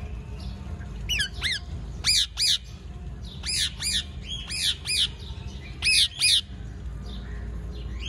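Indian ringneck parakeet giving a run of loud, harsh squawking calls, about a dozen short calls in quick pairs and clusters, each rising and falling in pitch. The calls start about a second in and stop a little past the middle.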